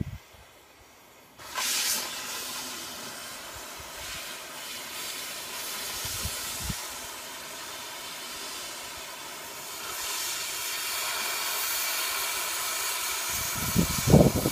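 Cutting torch hissing steadily as it cuts through steel plate, starting suddenly about a second and a half in, with a few low knocks near the end.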